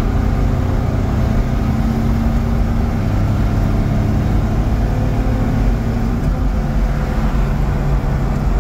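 Kia Towner mini truck's 800cc three-cylinder engine running steadily at cruising speed, about 80 km/h, heard from inside the cab along with road noise. It is running on a swapped-in 250cc motorcycle carburetor and holds speed smoothly.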